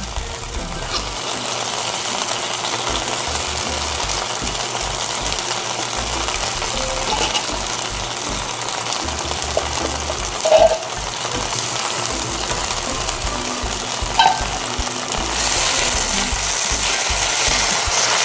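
Onions, tomato and canned sardines sizzling in a wok while being stirred with a wooden spatula, with two short clinks about ten and fourteen seconds in. The frying gets louder near the end.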